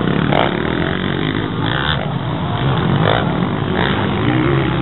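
Motocross dirt bike engines running on the track.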